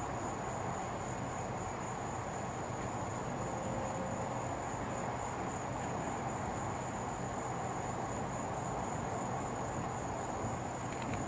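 Night ambience: crickets trilling steadily at a high pitch over a constant low background hum.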